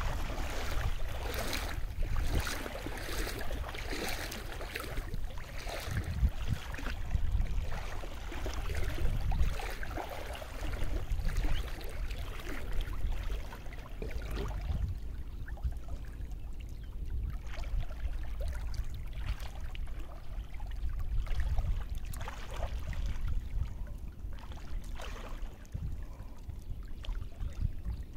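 Shallow river water splashing and sloshing under a person's wading steps, about one splash a second through the first half. It then goes quieter, with only occasional small splashes as he stands in the water handling a cast net.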